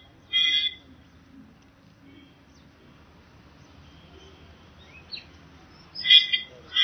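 Birds chirping in short bursts: a call just after the start, a faint rising chirp about five seconds in, and a louder run of chirps near the end, over faint steady background noise.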